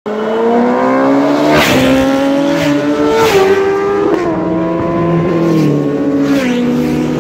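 A high-revving engine pulling hard through several gear changes, its pitch climbing and then dropping sharply at each shift, five shifts in all.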